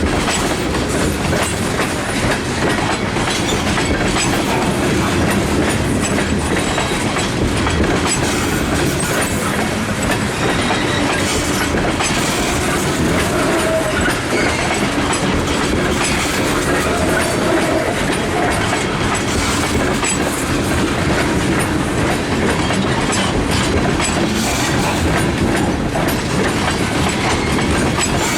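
Freight train's tank cars rolling steadily past on jointed track: continuous wheel rumble and clickety-clack of wheels over the rail joints, with a couple of faint, brief wheel squeals near the middle.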